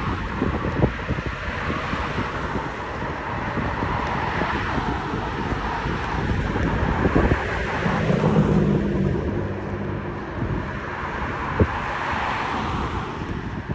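Outdoor ambience with wind buffeting the microphone, and a low hum for about two seconds some eight seconds in.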